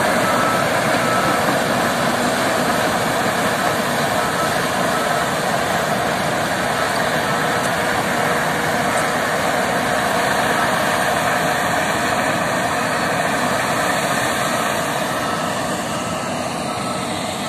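Heavy earthmoving machinery running steadily: the diesel engines of a crawler dozer and smooth-drum road rollers at work, heard as a dense, even noise.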